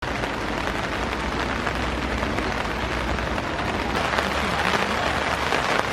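Rain falling steadily on a camping tarp: a dense, even patter of drops.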